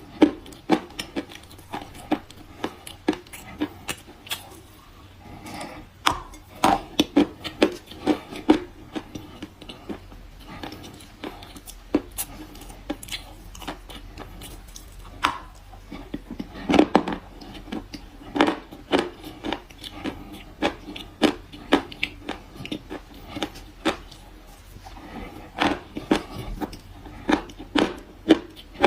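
Close-up crunching and chewing of dry kaolin clay chalk: sharp, crisp crunches coming irregularly, often in quick clusters.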